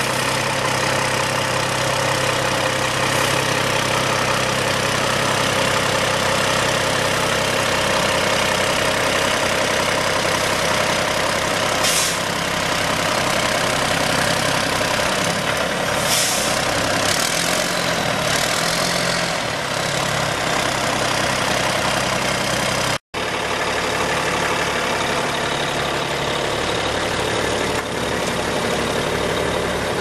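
Cummins L10-300 six-cylinder turbocharged diesel of a concrete mixer truck idling steadily, with a few short hisses around the middle of the stretch.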